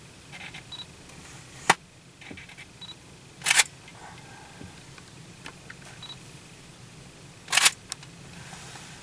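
Camera shutter clicks, three sharp ones a couple of seconds apart, the last two heavier and doubled like a reflex camera's shutter, over a low steady hum.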